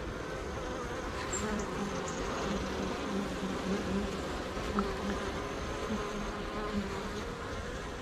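Honey bees buzzing over an open hive's frames: a steady hum with a wavering pitch that swells in short pulses through the middle.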